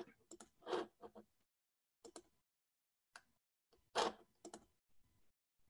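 Scattered clicks and taps of a computer keyboard and mouse as screen sharing is started, a handful of separate strokes with the loudest about four seconds in, heard over a video call with dead silence between them.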